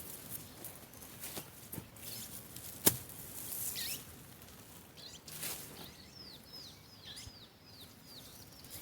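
Weeds being cut by hand: rustling stems and a few sharp strikes of the blade, the loudest about three seconds in. In the second half a small bird chirps a quick run of short, falling notes.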